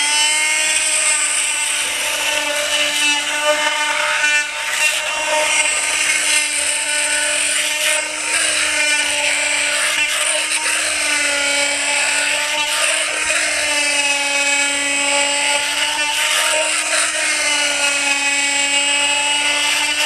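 Corded Harbor Freight Chicago Electric oscillating power trimmer running with a scraper blade, scraping old wax-moth-damaged comb off a wooden beehive frame. It makes a steady, high buzzing whine whose pitch wavers slightly now and then as the blade is pressed into the comb.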